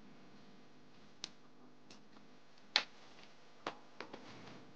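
A handful of light, sharp clicks and taps from a small hand tool working against the plastic and metal palm rest of a Huawei Matebook D 14 laptop as parts around the touchpad are lifted. The loudest click comes about three seconds in, with a short scrape near the end.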